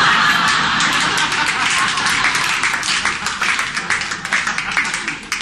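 Theatre audience applauding: a dense burst of clapping that starts just before and thins out toward the end.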